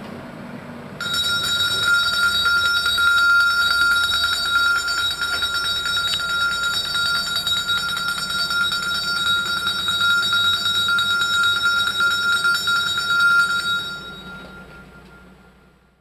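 A continuous electric bell on a garbage truck rings steadily, starting abruptly about a second in and stopping near the end, over the truck's low engine running, which then fades away.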